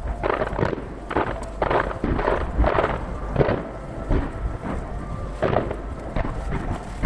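Fireworks shells bursting in quick succession, about two bangs a second over a low rumble, heard from some distance and sped up threefold.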